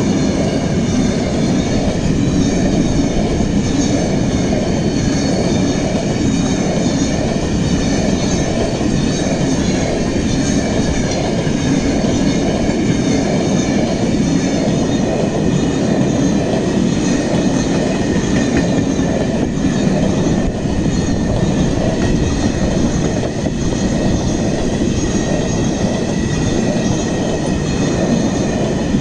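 Long freight train of empty flat wagons rolling past close by: a steady heavy rumble of wheels on rail, with a continuous high-pitched squeal from the wheels over it.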